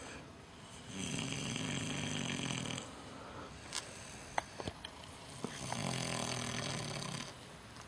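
Micro pig snoring loudly in its sleep: two long snores, each lasting about two seconds and coming about five seconds apart, with quieter breathing and a few sharp clicks between them.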